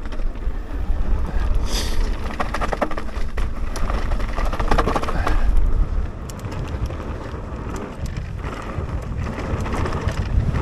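Mountain bike riding down a dirt trail: wind rumbling steadily on the microphone over tyre noise, with the bike clattering and ticking over bumps. It goes a little quieter for a few seconds past the halfway point.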